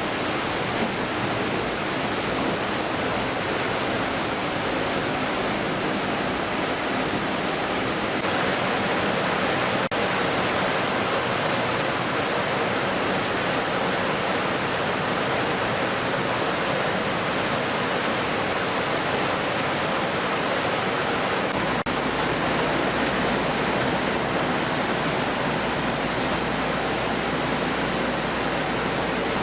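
Steady, loud rushing noise with a faint high-pitched whine, shifting slightly in character about a third of the way in and again about three quarters through.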